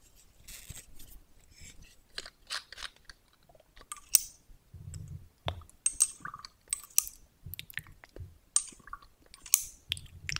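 Close-miked clicks and taps of a glass dropper bottle being handled: the dropper cap is worked off and on, and the glass pipette taps against the bottle neck and the plastic mixing bowl as essence is dropped in. A few soft low thumps come in among the clicks.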